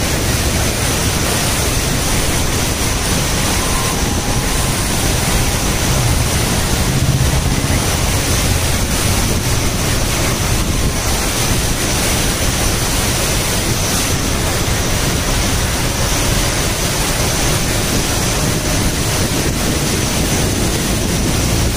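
Steady rushing noise from a moving vehicle on a waterlogged road: water and wind buffeting the microphone over a low engine hum.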